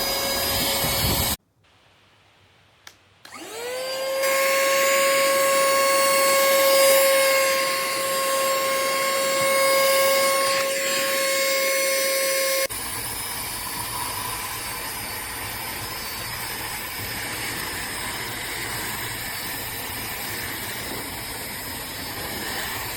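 Cordless handheld car vacuum cleaner running, cutting off a second and a half in, then a click and the motor spinning up to a steady high whine. About halfway through, the whine changes suddenly to a quieter, even rushing of air.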